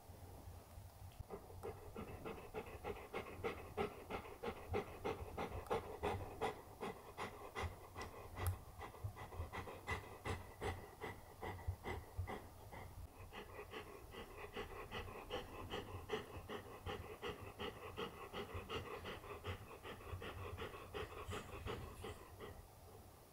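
Golden retriever panting with its mouth open, quick and rhythmic, starting about a second in.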